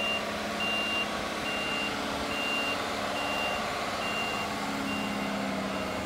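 Snowplow dump truck backing up: its reversing alarm gives a steady series of single high beeps, a little more than one a second, over the truck's engine running.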